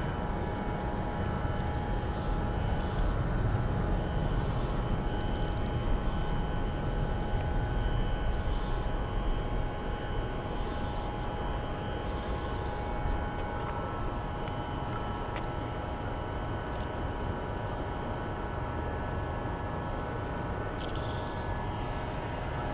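A steady mechanical drone, a constant hum of several fixed tones over a low rushing noise, unchanging throughout.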